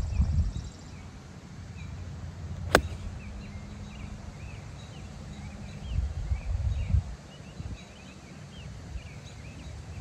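An 8-iron striking a golf ball on a full swing: one sharp click a little under three seconds in. Small birds chirp throughout, and wind rumbles on the microphone now and then.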